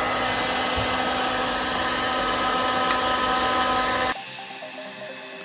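Hand-held electric hot air gun running, its fan blowing steadily with a thin motor whine. The sound cuts off abruptly about four seconds in, leaving a much quieter background.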